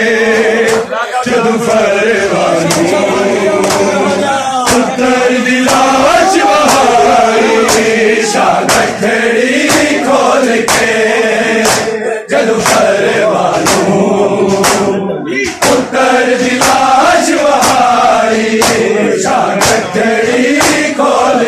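Men's voices chanting a Punjabi noha (Shia mourning lament) together, over the steady beat of open hands slapping bare chests in matam, a little faster than one strike a second.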